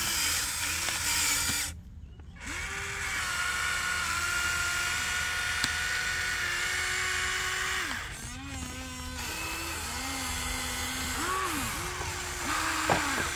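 Radio-controlled toy excavator's small electric motors whining as the boom, arm and bucket move, starting and stopping many times, the pitch rising and falling with each movement. A sharp click near the end.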